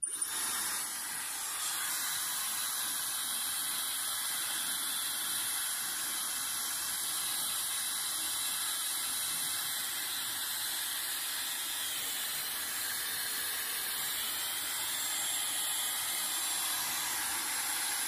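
Dyson Supersonic hair dryer switching on and running steadily at full blow: a constant rush of air with a thin high whine over it.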